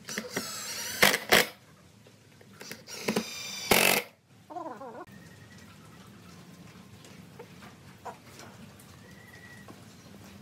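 A cordless drill runs in two short bursts, boring into a wooden cross-arm, with a couple of sharp clicks in the first burst; the second burst ends in a falling whine. After that only a faint low hum remains.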